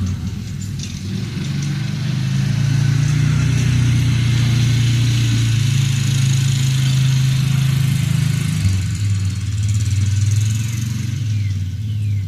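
Side-by-side utility vehicle's engine running as it is driven across a field, a steady low hum that drops to a lower note about two-thirds of the way through.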